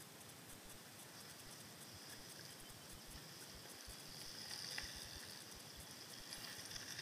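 Two mountain bikes passing one after the other on a dirt trail, the faint hiss and crunch of tyres on gravel swelling as each comes close.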